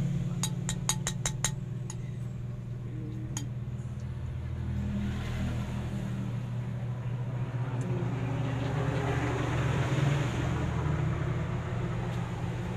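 Steady low drone of an engine running nearby, with a quick run of about six sharp clicks about a second in and a few single clicks later.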